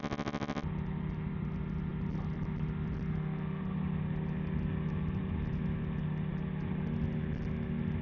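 A weight-shift microlight trike's pusher engine and propeller running at a steady drone as the trike climbs away from the runway, with the pitch lifting slightly about seven seconds in.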